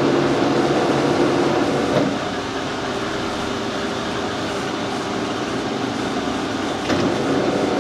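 Metal lathe running under power with a steady gear whine and hum while a single-point tool takes a pass on a coarse 4 TPI thread. The whine fades about two seconds in, and a sharp click comes near the end.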